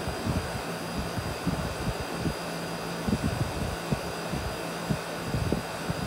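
Miller 3-ton central air conditioner's outdoor condensing unit running, its compressor and condenser fan giving a steady hum. Irregular low buffeting on the microphone comes and goes over it.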